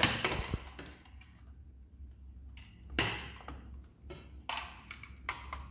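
A few short, sharp clicks and taps, the loudest about three seconds in and several more near the end, over a low steady hum.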